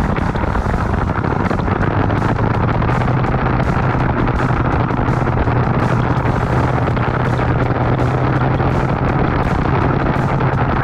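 IAME X30 125cc two-stroke kart engine running at a fairly steady pitch on track, heard through an onboard camera microphone with wind buffeting.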